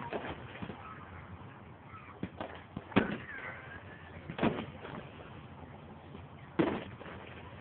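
Fireworks going off: three sharp bangs spread over a few seconds, the first and loudest about three seconds in, with a few fainter pops between.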